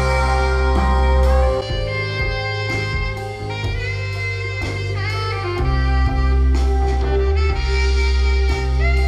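Instrumental jazz with a saxophone lead, drum kit and a strong bass line, played back through loudspeakers with a Logitech Z-2300 subwoofer as a speaker sound test.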